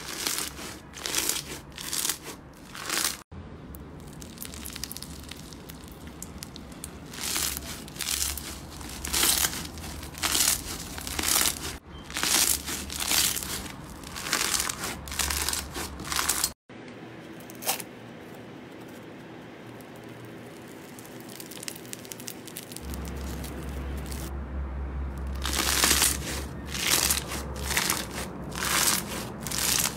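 Slime being squeezed, pressed and pulled by hand, making repeated crackling, crinkling squishes about one or two a second, in several short clips that cut from one to the next.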